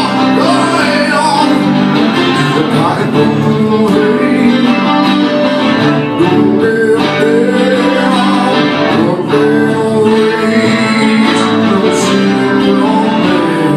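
Two acoustic guitars playing together live, with a male voice singing.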